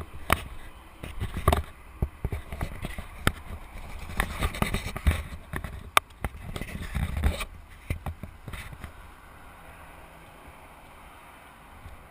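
BMW R1200GS Adventure flat-twin engine firing unevenly in irregular pops and thuds, then stopping about seven and a half seconds in: a rough-running engine that won't start and run properly.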